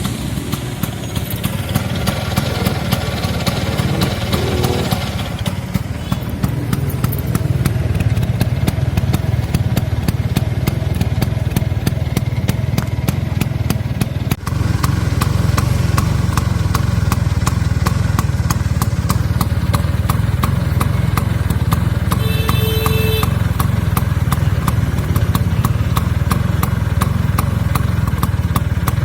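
Lambretta scooter's two-stroke single-cylinder engine, freshly rebuilt, idling steadily with an even, rapid firing tick. Near the three-quarter mark a short pitched tone sounds over it.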